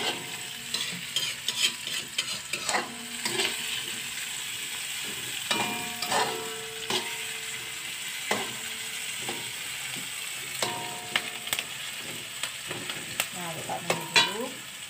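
Spice paste of garlic, shallots and chillies sizzling in hot oil in a thin metal wok, being sautéed before the tempeh goes in. A metal spatula scrapes and knocks against the wok at irregular intervals, and the pan rings briefly after some strikes.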